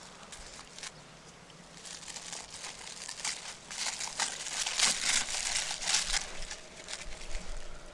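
Plastic crinkling and rustling in irregular crackles that build up, are loudest toward the middle, and die down near the end.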